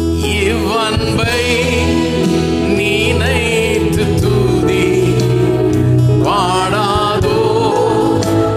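A man singing a Tamil Christian worship song into a microphone, with vibrato on held notes, over sustained band accompaniment.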